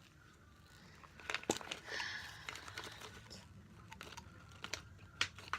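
Packaging rustling and crinkling, with a few sharp clicks, as a container of INR test strips is opened and a strip taken out.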